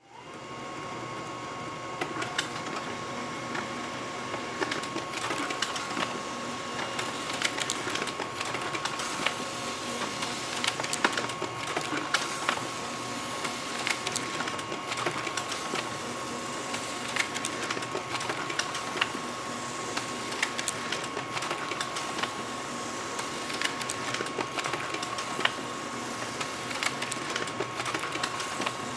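Laser printer running: a steady whir with a high hum, overlaid by frequent irregular clicks and ticks of its paper-feed mechanism.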